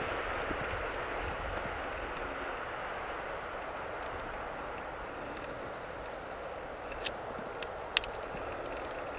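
Distant rumble of a passing vehicle slowly fading away, with two sharp clicks near the end, the louder one about eight seconds in.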